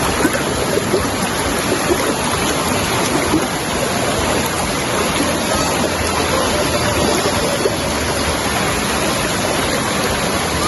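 A river's water rushing steadily over rocks, a loud even noise without a break.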